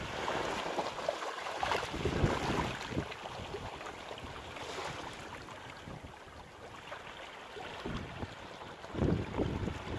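Sea waves breaking and washing on a rocky cove shore at high tide, with wind buffeting the microphone. The surf swells louder in the first few seconds and again about nine seconds in.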